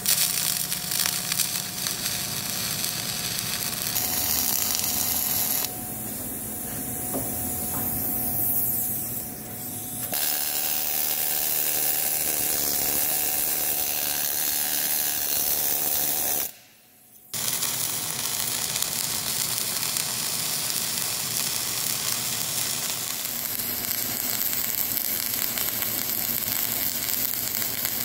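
Gas-shielded wire-feed (MIG) welding on steel plate, a steady crackling sizzle, cut together with a stretch of a pneumatic needle scaler rattling against the weld to knock off slag and spatter. There is a short dropout about two-thirds through, after which the welding sizzle returns.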